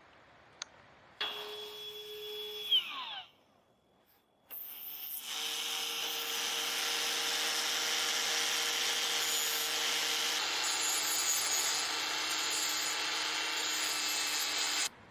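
A small power tool working wood. A short run of about two seconds winds down in pitch, then after a brief pause it runs steadily for about ten seconds and cuts off suddenly near the end.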